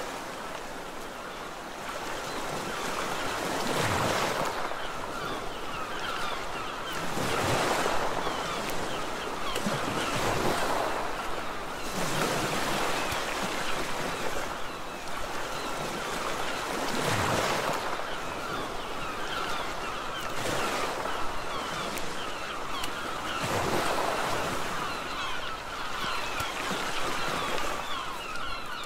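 Sea surf: waves washing in on the shore, swelling and falling back about every three seconds.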